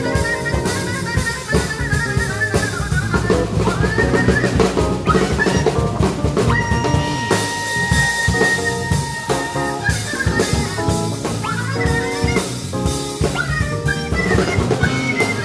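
Live jazz-fusion band playing: a drum kit with busy snare and bass drum, electric bass, and a trumpet playing the melody.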